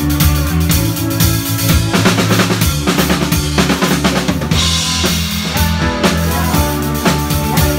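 Live rock band playing loudly, the drum kit prominent with steady bass drum and snare hits over bass and guitar.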